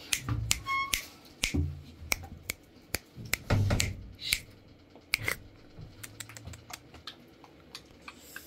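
A baby's hands tapping and slapping the plastic tray of a baby walker: irregular sharp taps with a few duller thumps, and a short high squeak about a second in.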